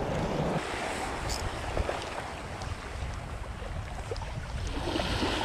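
Small waves lapping and washing at the water's edge, with wind rumbling on the microphone.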